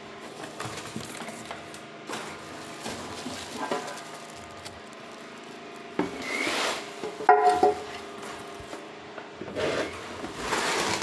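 New cooking pots being handled and unpacked: light knocks and rubbing, with two metal clinks that ring briefly a little past the middle, and a rustle near the end.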